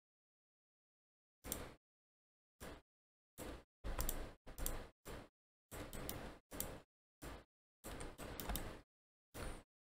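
Computer mouse and keyboard clicks while operating modelling software: about a dozen short, irregular bursts of clicking, some holding two or three clicks in quick succession, each cut off into dead silence.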